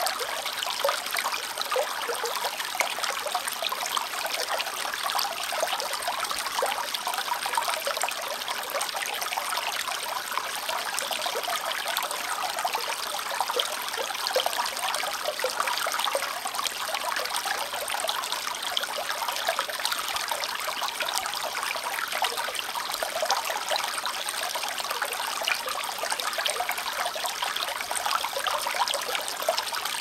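Small shallow brook babbling over stones: a steady, close trickling and gurgling of running water.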